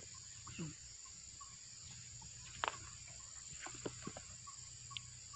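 Faint scrapes and knocks of a metal digging bar working the hard soil inside a termite mound, the sharpest about halfway through. Behind them, a steady high buzz of insects and a short chirp repeating about twice a second.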